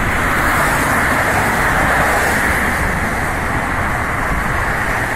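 Steady road traffic noise: cars passing close by on a multi-lane road, a continuous rush of tyres and engines.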